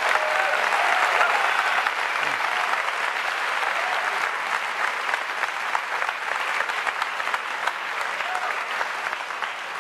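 Large audience applauding, with a few cheers near the start, the applause slowly dying away.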